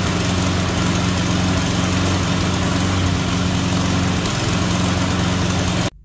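Push mower's small single-cylinder engine running steadily, then cutting off abruptly near the end.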